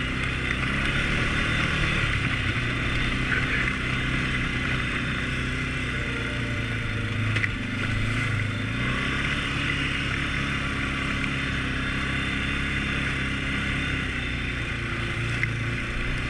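A 2018 Can-Am Outlander 450 L ATV's single-cylinder Rotax engine running steadily as the quad rides along a dirt trail, its note dipping and rising a little about halfway through, with a steady hiss over it.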